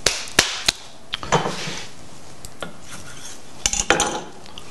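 Kitchen clatter: three sharp clicks of a knife and plate, then a quick cluster of knife taps on a wooden cutting board near the end.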